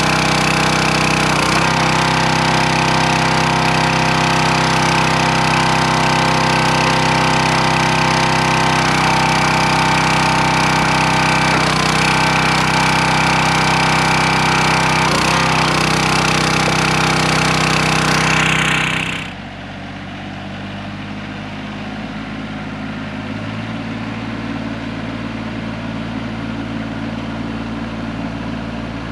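A small engine running steadily at one speed. About two-thirds of the way through, the sound cuts off abruptly to a quieter, lower-pitched engine running.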